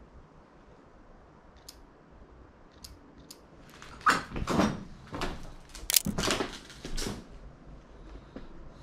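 A few faint clicks, then a run of loud, irregular knocks, scuffs and scrapes for about three seconds from roughly four seconds in: footsteps over a debris-strewn floor and a wooden door being pushed while walking through a doorway.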